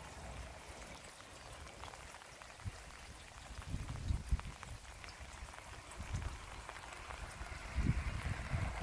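Rain falling, a fine patter of drops, with gusts of wind buffeting the microphone now and then, strongest near the end.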